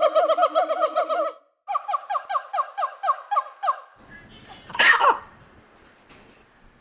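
Monkey chattering: two runs of rapid, pitched chirps, about seven a second, then one loud screech falling in pitch about five seconds in.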